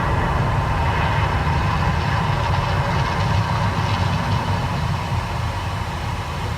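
Deep, steady rumble with a hiss over it from the Mirage volcano show's eruption, easing slightly near the end.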